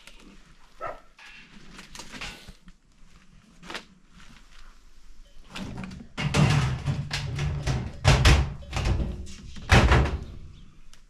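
Round sheet-metal lid being handled and set onto a large galvanized steel storage bin: a run of loud knocks and thunks in the second half, the loudest two about two seconds apart, after quieter rustling and handling.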